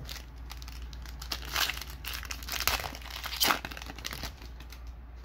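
Plastic wrapper of a Donruss baseball card pack crinkling and tearing as it is ripped open by hand, in a run of sharp crackles loudest in the middle.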